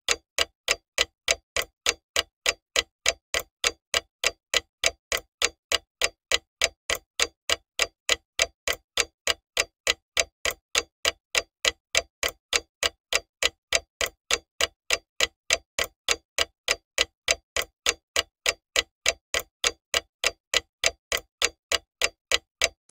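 Steady clock-like ticking sound effect, every tick alike, about two and a half ticks a second, stopping just before the end.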